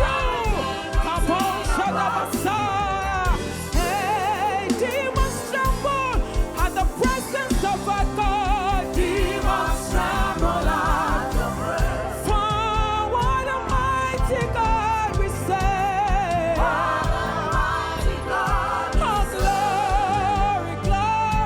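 Gospel worship song: singing with vibrato over an accompaniment with a steady beat.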